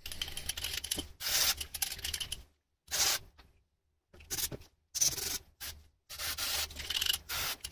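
Aerosol carb cleaner sprayed onto a diesel injector body in about five separate hissing bursts, the later ones longer.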